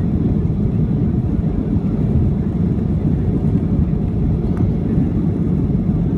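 Steady low rumble of a Boeing 737-800's CFM56-7B engines and rushing air, heard from inside the passenger cabin during the climb after takeoff.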